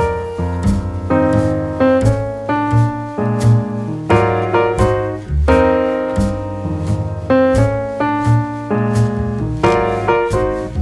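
Background music: piano-led instrumental with a steady beat.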